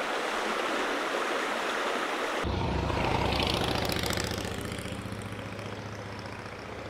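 Shallow mountain stream running over rocks, then, after a cut about two and a half seconds in, a motorcycle engine running on a gravel road. The engine is loudest just after the cut and fades as the motorcycle pulls away.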